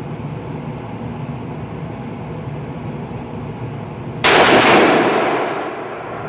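A single 5.56/.223 rifle shot from a Smith & Wesson M&P15 Sport II AR-15, about four seconds in, very loud and dying away over about a second. Steady background noise before and after it.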